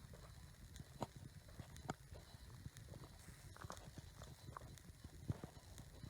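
Faint footsteps on a dirt trail, an irregular knock roughly every second at walking pace, over a low rumble of wind or handling on the microphone.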